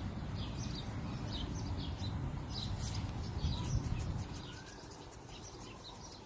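Small birds chirping over and over, short quick calls, above a steady low outdoor rumble that eases off a little in the last couple of seconds.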